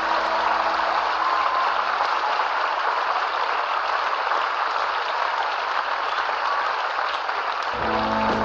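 Audience applauding, with the last notes of the band's previous song ringing out at first; about eight seconds in the band starts playing again.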